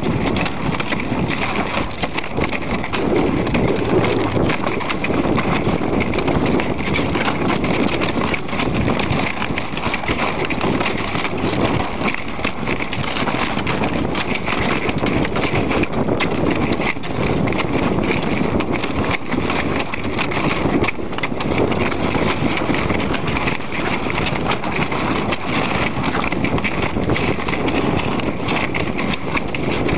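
A dog sled runs over river ice, pulled by a team of Canadian Inuit dogs. It makes a steady, rough scraping noise of many rapid small clicks and rattles, the runners and the dogs' feet on the ice.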